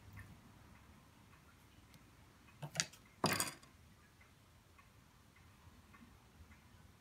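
Faint small taps and clicks of hand work with clay and tools on a wooden workbench, with two louder knocks close together about three seconds in, the second the loudest and a little drawn out, like something set down or slid on the wood.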